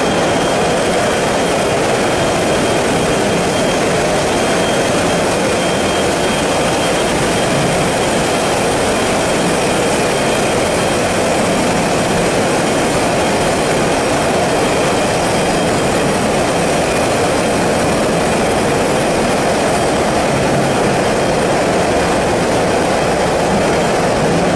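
Steady, loud, unbroken mechanical din from a French fry production line's processing machinery, with a faint high whine running under it.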